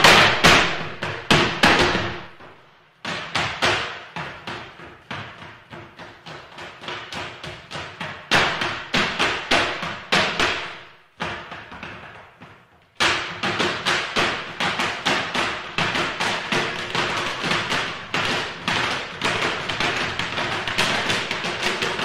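Folklorico zapateado: boot heels and soles stamping rapid rhythmic patterns on low wooden boxes, several strikes a second, each with a short ring. The stamping thins out and nearly stops twice, about two and a half seconds in and around eleven seconds in, then comes back in a dense, steady run.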